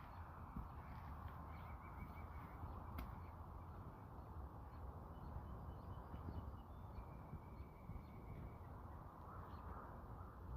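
Faint birds calling, a few short runs of quick notes, over a steady low outdoor rumble.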